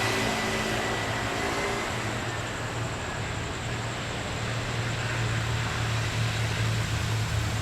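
Steady low rumble and hum of a train, with a faint tonal note in the first two seconds that then fades out.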